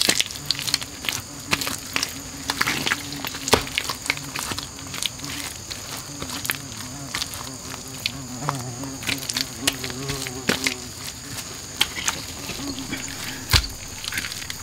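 Wet mud being pressed and patted by hand, with frequent short squelches and pats. Under it a buzzing insect drones close by, wavering in pitch, over a steady high insect chorus.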